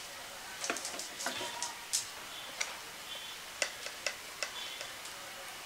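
Metal spoon tapping and clinking against a ceramic plate and spice tin while spooning out ground spice: a series of irregular sharp clicks, some with a short ring.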